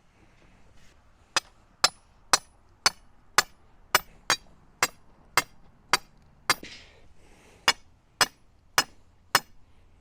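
Hammer striking a steel rebar stake to drive it down into the ground: about eleven sharp metallic blows at roughly two a second, a short pause, then four more.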